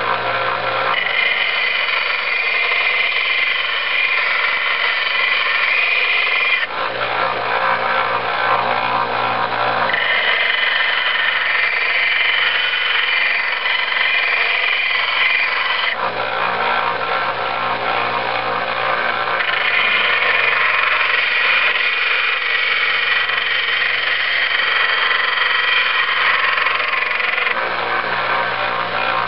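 Small Harbor Freight belt sander with an 80-grit belt running with a steady motor hum, while a hatchet's steel edge is pressed against the belt in three long spells of grinding to work out nicks and gouges in the blade.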